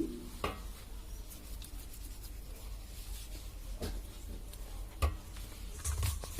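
Paratha dough being handled and pinched into balls by hand on a work surface: faint rubbing with a few soft knocks, over a low hum.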